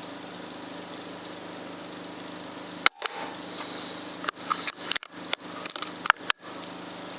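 Single shot from a moderated .22 Wolverine R PCP air rifle: one sharp crack about three seconds in, followed by a quick run of shorter sharp clicks. A steady low hum underlies it.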